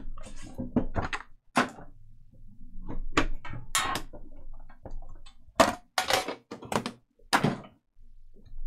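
Trading-card hobby box packaging being handled and opened: the lid coming off the case and the small inner box being lifted out and set down on the mat, giving about ten separate thunks and knocks with softer scraping between them.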